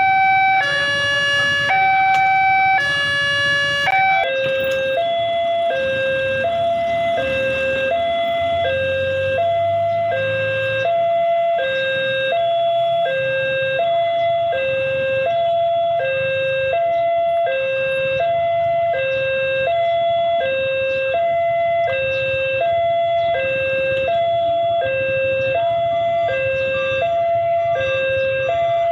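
Railway level-crossing warning alarm sounding from the signal's loudspeaker: an electronic two-tone chime alternating high and low over and over, the warning that a train is coming and the barriers are closing. About four seconds in it changes to another crossing's alarm, a slightly lower high-low pair, with road-traffic engine rumble underneath.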